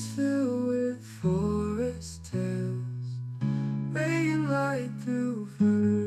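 Soft instrumental music: a plucked-string melody over held low notes that change every second or two.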